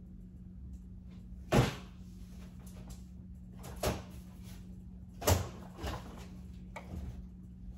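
Household items being handled and set down while a room is unpacked: about five sharp knocks and thuds, the loudest about one and a half and five seconds in, over a steady low hum.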